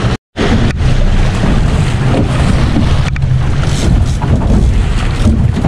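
Wind buffeting the microphone on a fishing boat under way, with the 100 hp outboard motor running as a steady low hum and water rushing past the hull. The sound drops out for an instant near the start.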